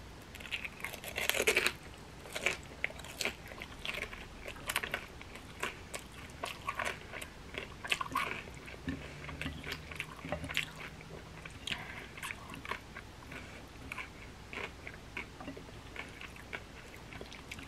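Close-up eating sounds: a crispy pan-fried dumpling bitten and crunched, loudest about a second in, then steady chewing with many small wet mouth clicks and smacks.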